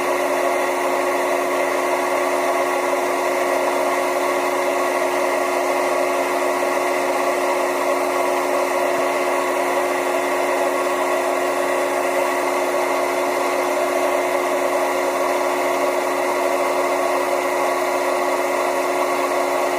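Electric motor running steadily with a strong, even hum and a steady whirring hiss, unchanging throughout.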